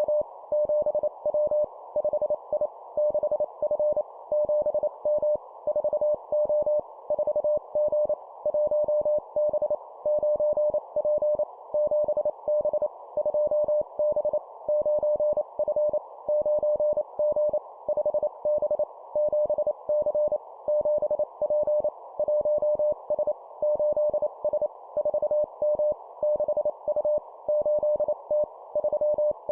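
Morse code (CW) sent at 25 words per minute as a single steady tone near 600 Hz, keyed in quick dots and dashes. The code runs in short groups, each a two-character letter-and-number word, with brief pauses between groups. A steady band of receiver-like hiss sits under the tone.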